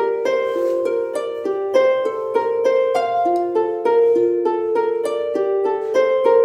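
Background music: a gentle, harp-like melody of plucked notes, several a second, at an even level.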